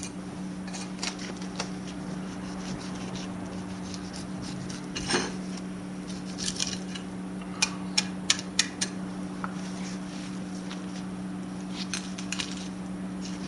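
Kitchen knife sliding along a sea bass's backbone to lift off a fillet: scattered clicks and short scrapes as the blade crosses the bones, with a quick run of clicks about eight seconds in. A steady low hum runs underneath.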